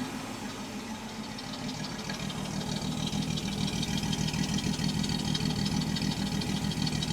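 1967 Ford Mustang's inline six-cylinder engine idling steadily, running on a new exhaust manifold gasket that is meant to cure an exhaust leak. The engine gets a little louder about two seconds in.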